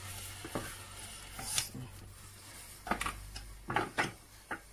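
Irregular knocks and scrapes of a sponge and a wooden spoon against a stainless steel pot as a thick corn-starch paste (agidi) is worked, with a cluster of sharper knocks in the second half.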